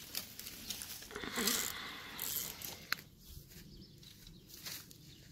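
Footsteps rustling and crunching through dry reeds and grass, with a single sharp click about three seconds in, then quieter.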